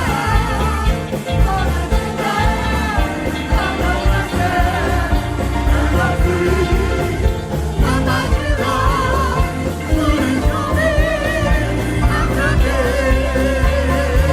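A band and voices performing a gospel song: singing with vibrato over a steady drum beat and bass.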